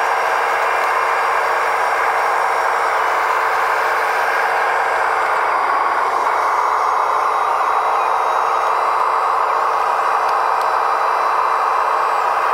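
1/14-scale RC hydraulic excavator running: a steady midrange whir of its small hydraulic pump and drive motors, with no deep engine tone, as it tracks off a trailer ramp.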